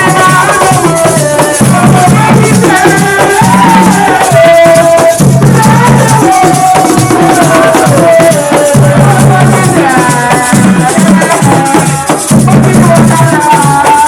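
Loud music: a gliding lead melody over a steady, repeating low percussion pattern with a continuous hiss of shakers.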